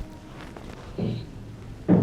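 Two dull slaps of a masseur's hands striking the body during a head and neck massage, about a second apart, the second louder.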